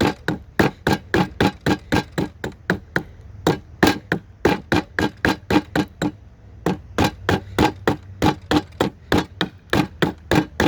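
Hatchet chopping into a cedar block, a quick steady run of sharp wooden chops about three to four a second, with a couple of short pauses.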